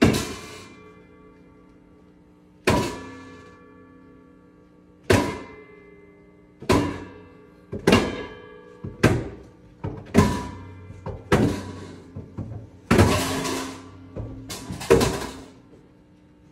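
Improvised percussion: about a dozen sharp struck hits, each ringing out and fading. They start a couple of seconds apart and come faster and closer together in the second half, with a dense flurry near the end.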